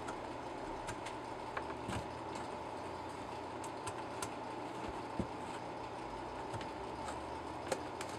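Steady low hum with a few faint clicks and ticks as crimped spade connectors are handled and pushed onto the terminals of a trailer mover control unit.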